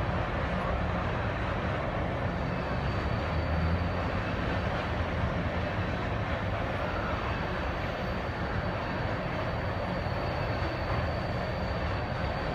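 A freight train of crude oil tank cars rolling past: steel wheels on rail making a steady, unbroken rolling noise.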